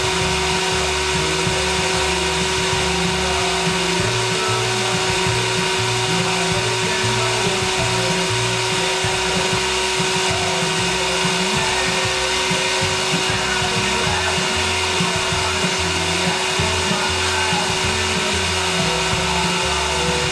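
CNC router spindle spinning a half-inch carbide end mill at 22,500 RPM: a steady whine made of several fixed tones over a steady hiss.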